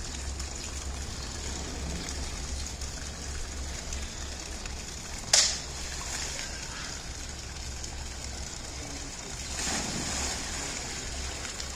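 A sharp slap of something hitting the pool water about five seconds in, then a polar bear leaping from the rock ledge into its pool with a big splash a little under ten seconds in.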